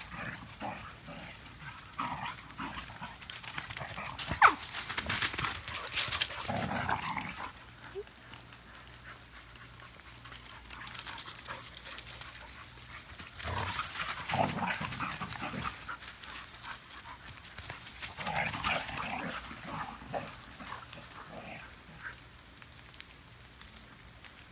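Two dogs play-fighting, with bouts of growls and yelps mixed with rustling, coming in three spells: near the start, around the middle, and about three-quarters through.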